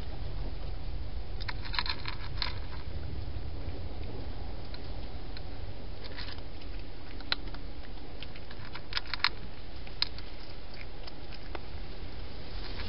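Wild hedgehog eating from a dish right at the microphone: irregular bursts of small crunching clicks as it chews, over a steady low rumble.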